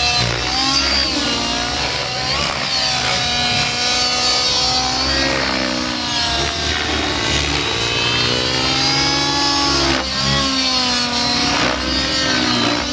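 Nitro radio-controlled helicopter in flight, its glow engine and rotor note rising and falling in pitch as it manoeuvres.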